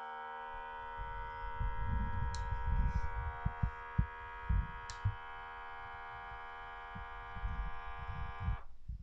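Vacuum sealer's pump running with a steady hum as it draws the air out of a perforated vacuum bag, then cutting off suddenly near the end. Irregular low thumps sound under it.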